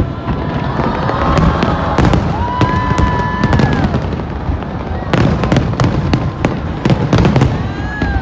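Fireworks bursting in clusters of sharp bangs and crackles over a steady low rumble. Near the middle, a held high tone about a second and a half long rises in and falls away.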